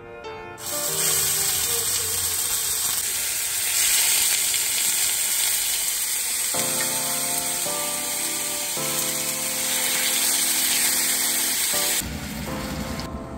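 Marinated beef bulgogi sizzling in a hot cast-iron Skeppshult egg-roll pan: a steady, loud frying hiss that starts about half a second in and drops away near the end.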